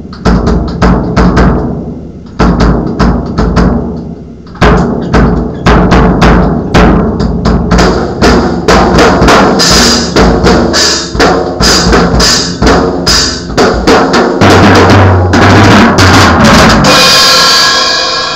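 Drum kit being played loosely: bass drum, snare and tom strikes in quick patterns with short pauses. Near the end it builds into a fast continuous roll and finishes on a cymbal crash that rings out and fades.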